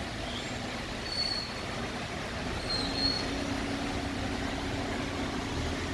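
Steady rain falling over a city, an even hiss. A low steady hum, like a distant engine, comes in about two and a half seconds in, with two brief faint high squeaks.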